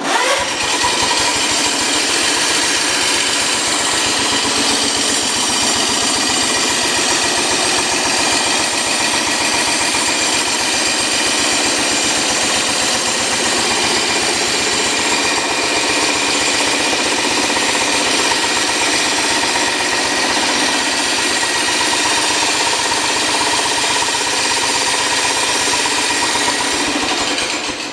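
A 1971 John Deere 140 H3 garden tractor starts and runs at idle with a loud, rapid, jackhammer-like rattling racket. The owner calls it an atrocious noise, places it up front rather than in the engine, and suspects the PTO. The tractor is shut off near the end.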